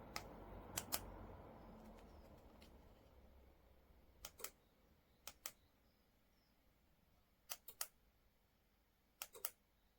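Sharp small clicks in pairs and threes, a second or more apart, over a faint low hum that fades away over the first few seconds.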